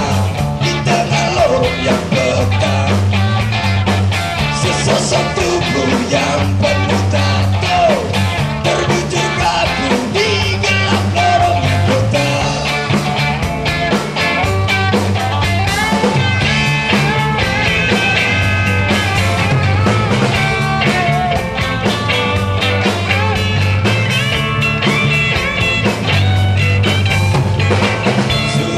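A rock band playing electric guitars, bass and drum kit, with a repeating bass figure under steady drumming.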